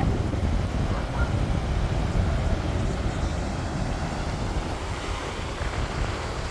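Wind buffeting the microphone, heaviest in the low rumble, with the wash of breaking surf behind it.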